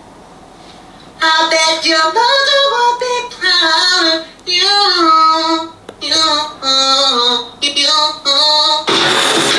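A high-pitched sung vocal melody from a song track, starting about a second in after a brief lull and running in short phrases with small gaps. Near the end it cuts to louder, denser music.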